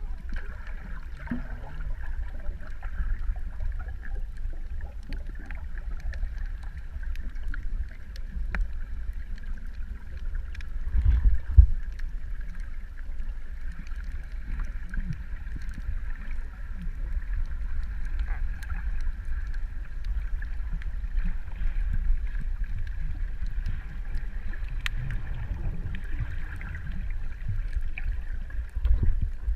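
Underwater sound recorded with a camera on a reef: a steady deep rumble with a constant hum above it and scattered faint clicks. The rumble swells louder about eleven seconds in and again near the end.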